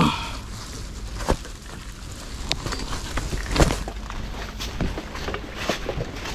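Irregular knocks and rustling of gear being handled. The loudest knock comes about three and a half seconds in.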